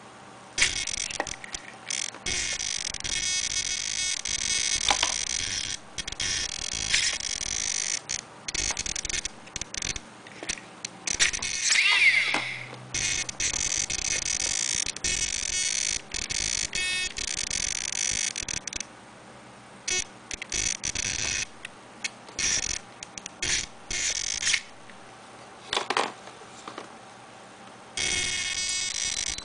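Savox SC-1257TG digital RC servo buzzing with a high-pitched whine that cuts in and out in irregular spurts, with a louder sweep in pitch near the middle. The owner wonders whether this servo noise is normal.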